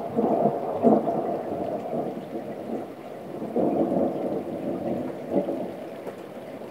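Thunder rumbling and rolling in several surges during a thunderstorm, over steady rain, easing off near the end.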